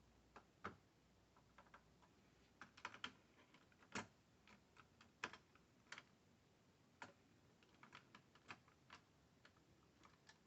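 Irregular light clicks and taps of small hard parts being handled while swapping processors in a server, about a dozen strikes, the sharpest about four and five seconds in.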